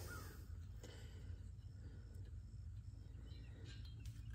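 Quiet outdoor background with a steady low rumble and a few faint clicks of a wire stretcher held against barbed wire. Near the middle, a faint high chirp repeats about three times a second.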